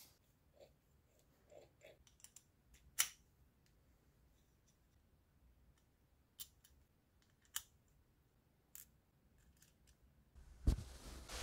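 Faint handling of an airsoft gearbox shell and its small parts: scattered light clicks of parts being fitted, with a sharper click about three seconds in. Near the end comes a louder rustle with a soft knock.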